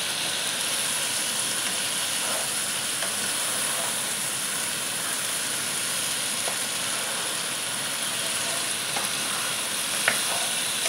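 Cherry tomatoes, onions and spices sizzling steadily in a frying pan as a plastic spatula stirs them, with a few faint scrapes of the spatula on the pan.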